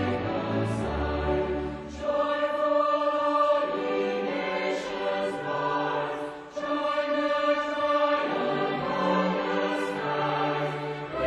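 A choir singing sustained chords with a string orchestra. The low bass notes drop out from about two seconds in and return about eight seconds in.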